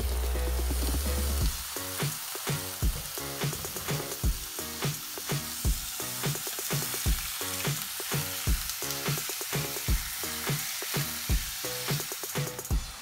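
Raw chicken pieces sizzling as they fry in hot oil with onions in a nonstick pan, a wooden spatula stirring and scraping through them. Background music plays, loudest in the first second and a half.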